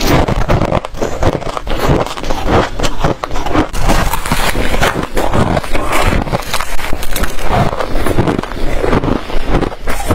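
Freezer frost being bitten and chewed, a dense, irregular run of loud crunches close to a clip-on microphone.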